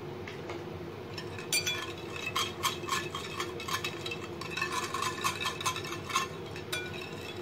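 Metal wire whisk beating thin yogurt in a glass bowl, its wires clinking and tapping against the glass in quick repeated strokes from about a second and a half in.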